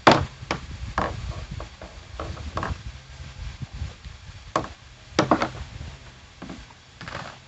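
Irregular knocks and clatter of tools and parts being handled, a loud knock at the start and a sharp pair about five seconds in.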